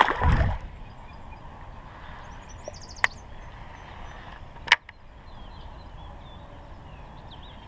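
A small largemouth bass splashes into shallow water as it is released, the loudest sound, at the very start. Then a quiet outdoor background with faint bird chirps and two sharp clicks from the baitcasting reel, about a second and a half apart, as the rod is readied for a cast.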